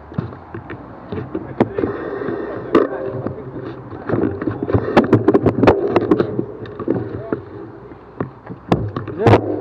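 Bicycle rattling and knocking over a rough off-road track, with steady tyre and wind noise and frequent sharp clicks and clatters.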